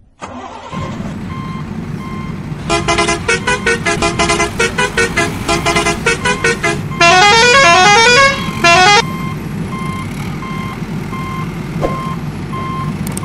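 Toy water tanker truck's electronic sound effects: a steady engine rumble, then a fast run of electronic beeping tones, then rising siren-like sweeps near the middle. A short beep repeats regularly throughout.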